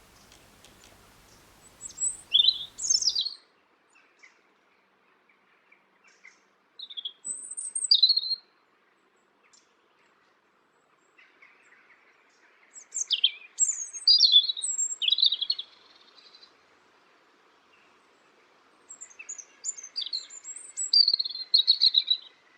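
Songbird singing in four separate bursts of quick, high twittering notes, with pauses of a few seconds between them. A faint low hum with light clicks stops about three seconds in.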